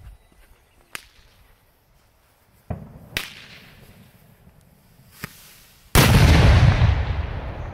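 Spanish firecrackers going off: a few scattered sharp pops, then about six seconds in a very loud blast that holds for over a second and trails away.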